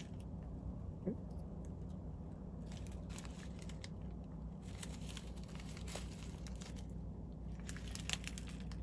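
Crinkling rustle of synthetic flash strands being handled and tied onto a saltwater teaser fly at a fly-tying vise. It comes in irregular spells over a steady low hum, with a sharp tick about a second in and another near the end.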